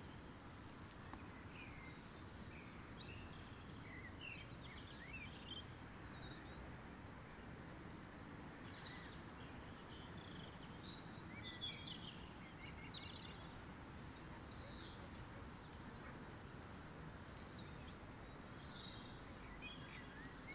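Birds chirping and singing faintly in short, scattered phrases over low, steady outdoor background noise.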